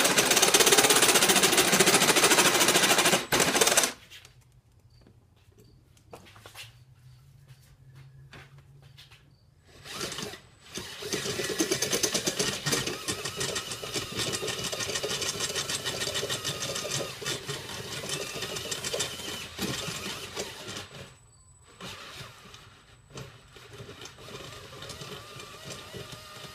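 Cordless drill running at speed, its bit boring into the steel of a railroad spike held in a vise, widening the centre hole into a finger ring. It drills for about four seconds, stops for several seconds with only a few light clicks, then runs again from about ten seconds in, lower near the end.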